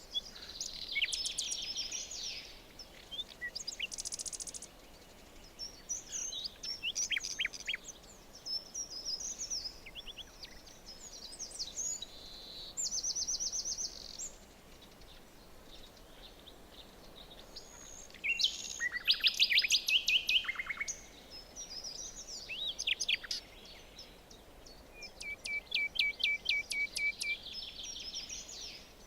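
Several songbirds singing in a forest: a string of varied chirps, trills and rapid repeated notes, over a faint steady background hiss; the loudest fast trill comes about two-thirds of the way through.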